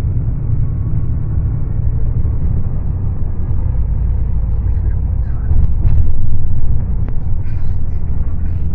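Cabin noise inside a Yutong coach bus at expressway speed: a steady low rumble of engine and road, growing louder about five and a half seconds in, with a few light rattles and clicks.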